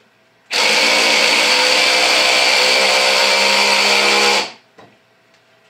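Black+Decker 20V MAX LDX120C cordless drill/driver running for about four seconds as it drives a screw into a wooden block, then stopping. It is set to clutch setting 10, and the clutch's torque limit comes in on this drive.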